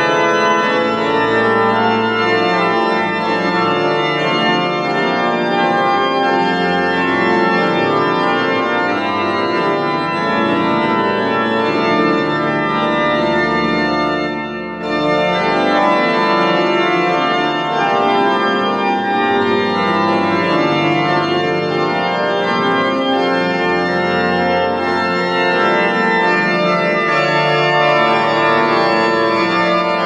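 Rieger pipe organ playing loud, full chords over a low pedal bass line that moves from note to note. The sound lifts off briefly about halfway through and comes straight back in.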